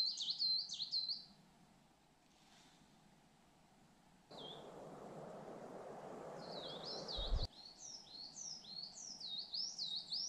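A small songbird singing quick, high, repeated phrases. It stops about a second in and starts again after about six seconds. In between, a steady rushing noise starts suddenly about four seconds in and cuts off abruptly with a low thud about seven seconds in.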